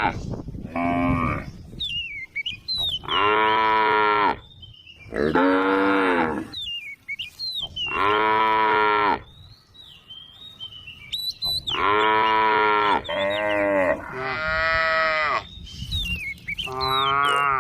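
Cows mooing one after another, about eight long calls of around a second each, two of them running almost back to back near the middle.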